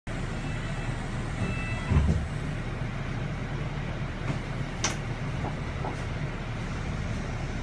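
Double-decker bus engine running with a steady low rumble as the bus moves, heard from inside on the upper deck. A short low thump comes about two seconds in, and a sharp click near five seconds.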